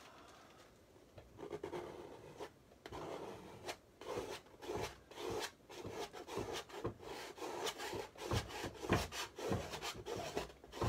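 A 3-inch blade scraping across dry paint on a stretched canvas in repeated short strokes, about two a second, starting about a second in. The scraping takes off the upper paint layers so the underpainting shows through.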